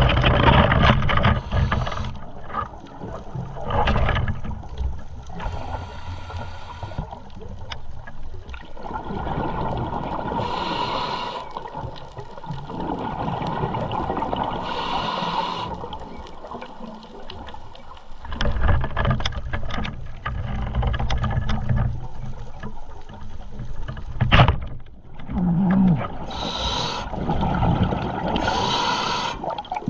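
Underwater sound of a diver breathing through a scuba regulator: about a second of hissing on each inhale, and gurgling rumbles of exhaled bubbles between them.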